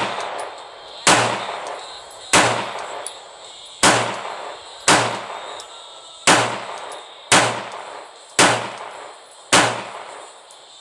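Glock 19X 9mm pistol firing eight deliberate shots, roughly one a second, each with a short echoing tail.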